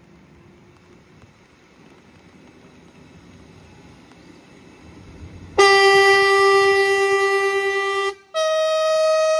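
Two-tone air horn of a diesel locomotive sounding on departure: about five and a half seconds in, a long lower note, a brief break, then a higher note.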